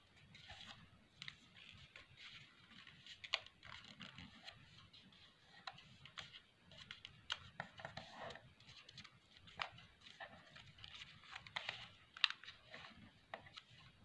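Origami paper rustling and crackling as fingers fold and crease it, in irregular soft rustles with a few sharper crackles spread through.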